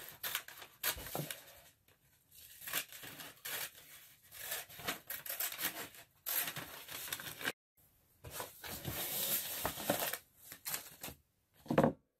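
Scissors cutting through a brown paper bag in a series of strokes with short pauses, with the crinkle of the stiff paper as it is handled.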